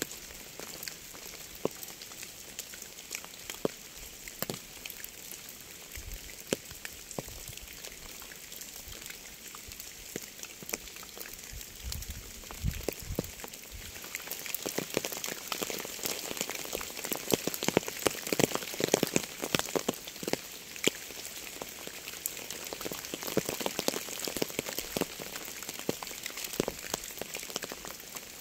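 Rain falling steadily, with separate drops ticking over a hiss of water. It grows heavier about halfway through and eases a little near the end.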